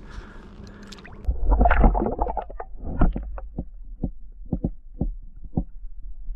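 Muffled underwater sound heard through a submerged camera: a low rumble of water with a string of short clicks and knocks, irregular at about two or three a second.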